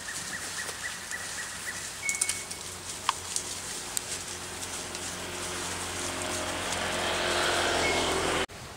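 An engine hum that grows steadily louder over the last few seconds and then cuts off abruptly, over faint outdoor background with a few short high chirps and scattered clicks earlier on.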